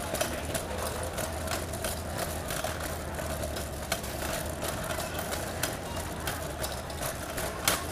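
City street ambience: a steady low hum of traffic and idling engines, with frequent sharp clicks and taps scattered through it, the loudest near the end.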